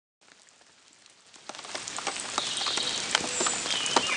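Rain falling and dripping, a steady patter with many sharp drops, fading in over the first second and a half. A bird chirps briefly a couple of times over it around the middle.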